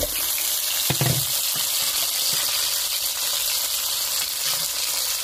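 Soy-sauce and vinegar marinade with onion slices poured into hot frying oil in a nonstick wok, sizzling steadily. Two dull knocks come at the start and about a second in.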